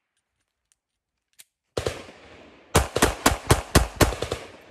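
Glock 42 .380 ACP pocket pistol firing: one shot, then about a second later a rapid string of about seven shots, each trailing off in echo.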